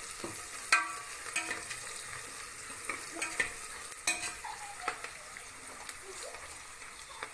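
Sliced onions and green chillies sizzling in hot oil in a pressure cooker while a metal spoon stirs them, clinking and scraping against the pot every second or so.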